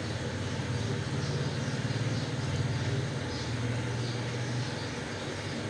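Steady low hum of running machinery, a little louder in the middle.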